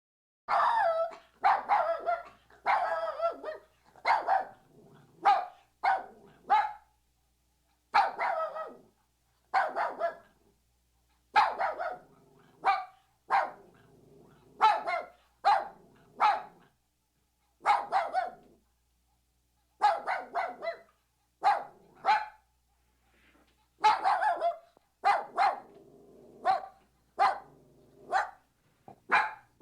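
Puppy barking over and over: short, high-pitched barks in quick runs of two to four, with brief pauses between the runs.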